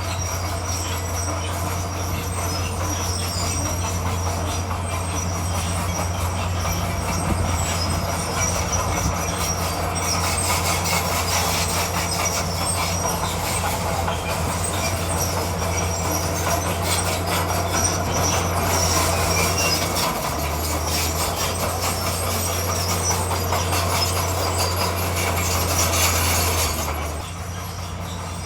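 Bulldozer's diesel engine running steadily under load, with its steel crawler tracks squealing and clanking as it moves. The noise drops suddenly near the end.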